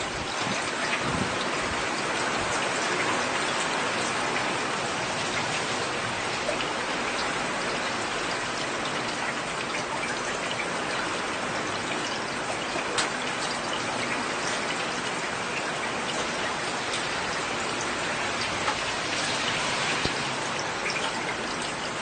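Heavy rain falling steadily, a dense even hiss with scattered sharp taps of nearby drops.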